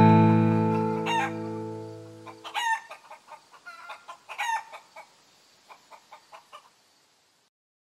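A final strummed guitar chord rings out and fades away over the first two and a half seconds while chickens cluck; three louder clucks stand out, followed by a run of short, soft clucks that stop about a second before the end.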